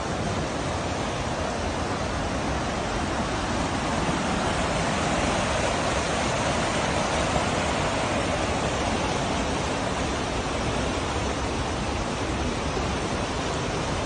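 Steady rush of flowing river water, growing a little louder midway and then easing back.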